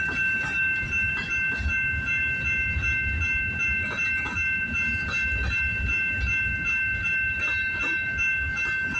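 A CN freight train rolling past, its wheels rumbling and clicking over the rails, with a steady high-pitched squeal held over it.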